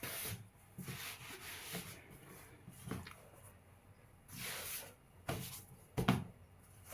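Hands rolling and rubbing soft bread dough on a work surface: irregular soft rubbing swishes, with a couple of light knocks about five and six seconds in.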